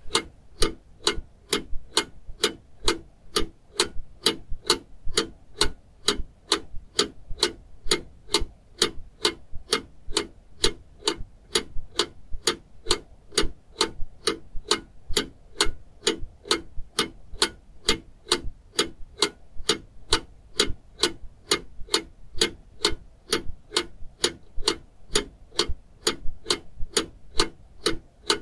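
Steady mechanical ticking, about three sharp ticks a second, evenly spaced and unchanging.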